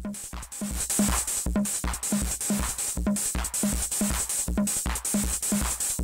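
Acid-style electronic music from a Korg Volca Keys synthesizer and a Roland RD-6 drum machine: an evenly repeating kick drum with hi-hat ticks under short synth notes. The track fills out and gets louder about a second in.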